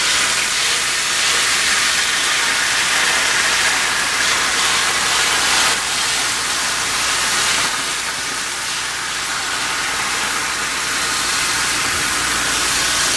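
Beaten eggs sizzling in olive oil on a flat-top griddle at about 350 degrees, a steady hiss throughout.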